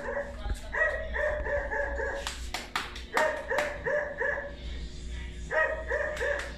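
A dog barking in quick runs of three to six barks, about four a second, with short pauses between runs. Hands patting fresh corn masa into gorditas give sharp slaps among the barks.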